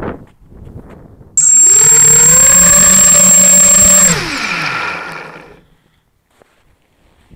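H250 FPV quadcopter's brushless motors spooling up sharply with a steady high-pitched whine, holding for under three seconds, then winding down in pitch and fading out.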